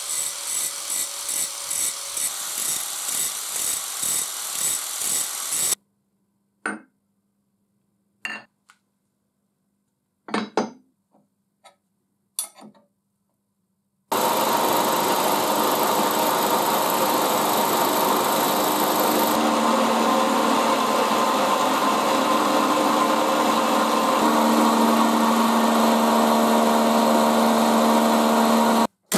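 An angle grinder grinds weld beads down on a steel bench vise body, pulsing about twice a second as it is worked back and forth, and cuts off after about six seconds. A few short metal knocks follow as the vise is clamped up, then a milling machine runs steadily with several steady tones as its end mill cuts the vise's jaw face.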